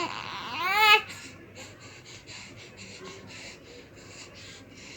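Newborn baby crying: one loud, wavering wail in the first second, then quieter short breathy sobs between cries.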